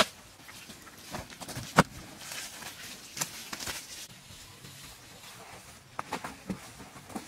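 Handfuls of wet mud being thrown and slapped onto a bamboo-lattice wall: irregular wet slaps and pats, the loudest a little under two seconds in, with a quick cluster near the end.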